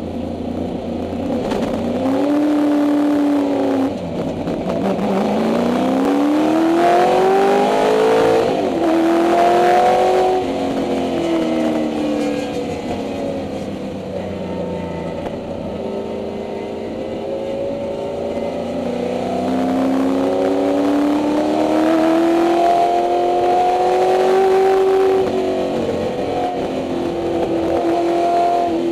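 1964 Ford Mustang race car's 289 Windsor V8, heard from inside the cabin, running hard at racing speed. Its note climbs under acceleration and drops sharply at the gear changes and lifts, several times over.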